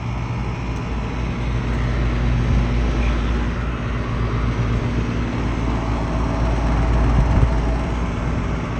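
Central air conditioner's outdoor condensing unit running, a steady hum from the compressor and condenser fan. The compressor is making strange noises; the system is almost empty of refrigerant.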